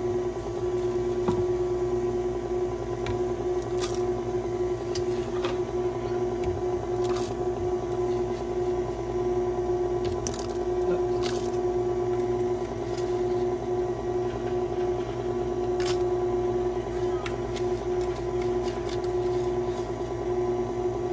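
A steady motor hum at a constant pitch, with scattered light clicks of a spoon scooping cookie crumbs into plastic cups.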